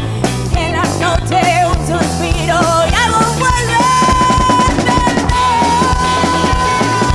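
A rockabilly boogie band playing live: drum kit keeping a steady beat under electric guitars and bass, with a woman singing. From about halfway through, one high note is held steady over the band.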